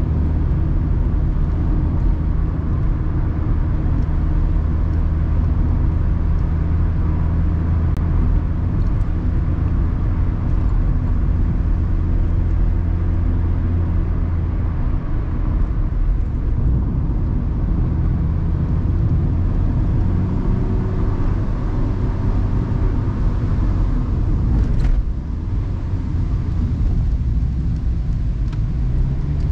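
Mazda Roadster (ND MX-5) inline-four engine running steadily with road noise, heard from inside the open-top cabin; the engine note shifts about halfway through and dips briefly near the end.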